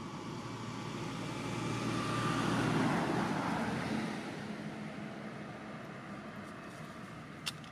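A road vehicle passing by: its noise swells to a peak about three seconds in and fades away over the next two seconds. A single sharp click near the end.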